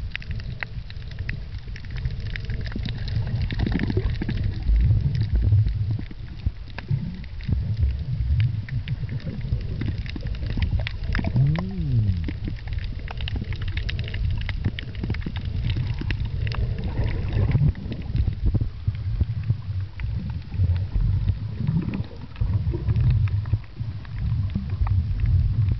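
Underwater sound picked up by a camera in the water while snorkeling: a muffled, shifting low rumble of moving water with scattered clicks and crackle. About midway there is a brief pitched sound that dips and then rises.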